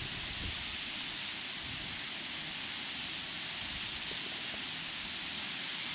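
Steady hiss of a strong wind, with irregular low rumbling where gusts buffet the microphone.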